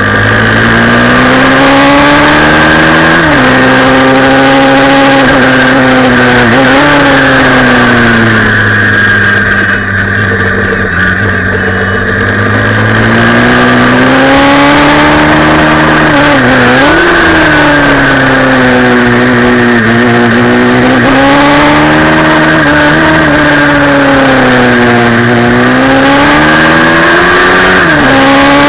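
Single-cylinder pit bike engine heard from on board, its revs climbing and falling again and again as it is ridden through corners and straights, with several short, sharp dips in pitch.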